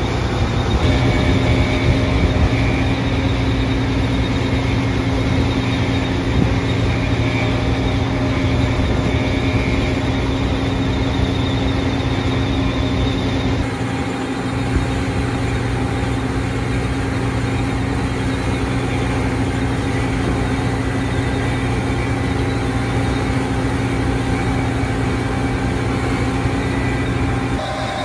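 New Holland CR11 combine running steadily while harvesting wheat, a constant engine and machinery drone. The sound shifts abruptly about halfway through, then steadies again.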